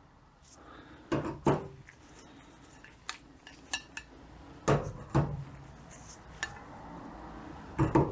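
Metal clutch discs and steel plates from an automatic transmission's clutch pack clinking and clanking as they are handled and set down one at a time: a few sharp metallic knocks, mostly in pairs, with lighter clicks between.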